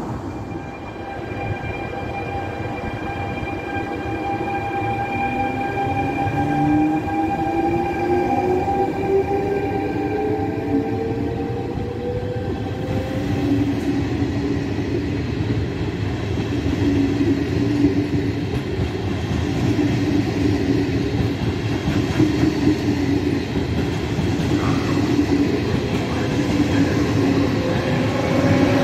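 Electric trains moving through a station. For the first dozen seconds there are steady high whines and a motor whine that rises in pitch. After that, a regional train's coaches and electric locomotive roll past with a continuous rumble of wheels on track.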